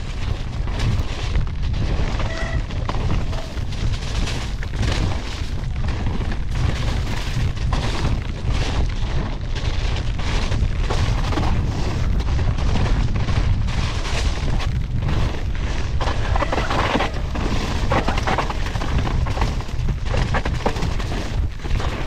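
Downhill mountain bike descending a rough dirt trail at speed. Wind rumbles steadily on the microphone over a constant clatter of tyres, chain and suspension hitting bumps.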